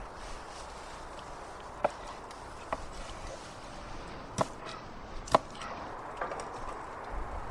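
Kitchen knife chopping bison liver on a wooden cutting board: about five sharp knocks of the blade on the board, irregularly spaced.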